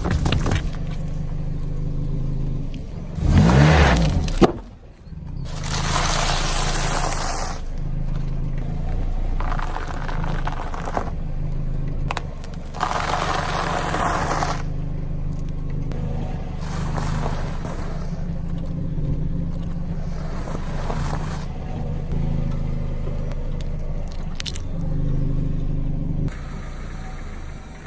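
A car's engine running at low speed while its tyres roll over objects, crushing and scraping them in repeated noisy bursts every few seconds.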